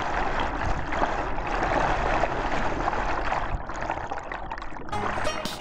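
Whitewater rushing and gurgling close to the microphone, a dense steady wash of water noise. Music with a bass line comes in about five seconds in.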